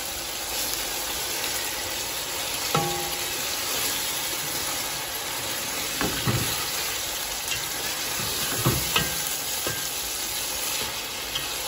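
Chicken pieces sizzling steadily in hot oil in a pot while a spatula stirs spoonfuls of yogurt into them. A few scrapes and knocks of the spatula against the pot come about 3, 6 and 9 seconds in.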